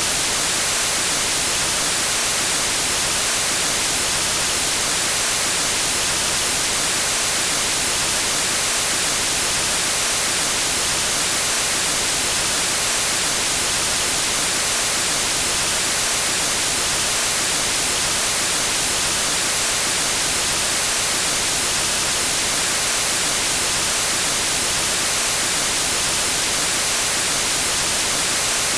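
Steady white noise of TV static: an even, unchanging hiss, heaviest in the treble.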